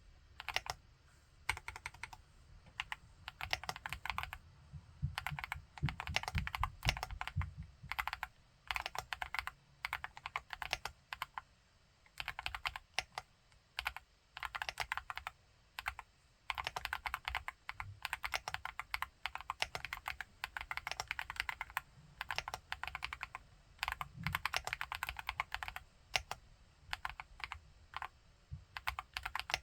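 Akko SPR75 spring-mount mechanical keyboard with MMD Princess tactile switches being typed on in bursts, with brief pauses between runs of keystrokes.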